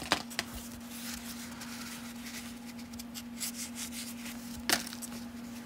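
A hand-held stack of 1992 Topps cardboard baseball cards being slid apart and leafed through: soft rubbing and shuffling, with two light clicks near the start and a sharper one near the end, over a steady low hum.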